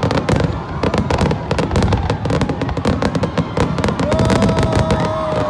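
Fireworks display going off in a rapid, dense crackle of many sharp pops and bangs. About four seconds in, a steady pitched tone joins the crackle.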